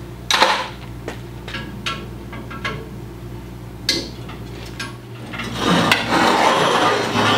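Scattered metallic clinks and knocks from hands and tools working on an antique gas pump's metal parts, then a longer scraping, rustling stretch of handling about six seconds in. A steady low hum runs underneath.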